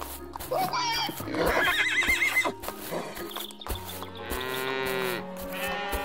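Farm animal calls over background music: a high wavering call, like a horse's whinny, about one and a half seconds in, then longer livestock calls in the second half.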